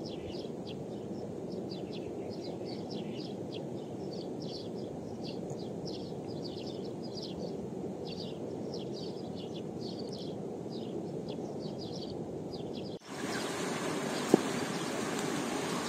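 A stream flowing, with small birds chirping in quick strings of high notes over it. About 13 seconds in the birdsong stops and a louder rushing noise takes over, with one sharp tap about a second later.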